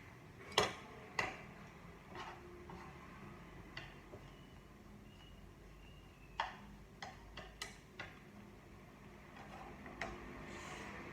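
A few sharp, irregular clicks and knocks: two close together about half a second in, a cluster of five a little past the middle, and one more near the end, over a faint background.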